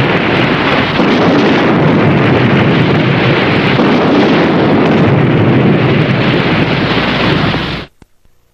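Steady rushing rumble of an underwater explosion, its column of water rising and falling back into the sea. It cuts off suddenly near the end.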